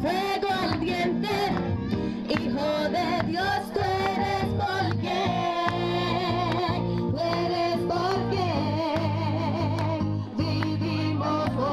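Voices singing a song to guitar accompaniment, the melody carried over steadily strummed chords.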